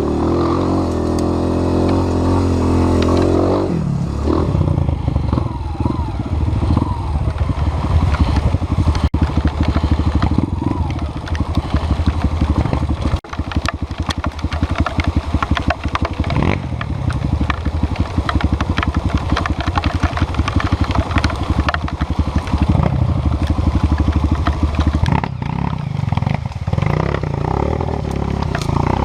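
Dirt-bike engine running steadily at first, then revving up and down with the throttle while being ridden off-road.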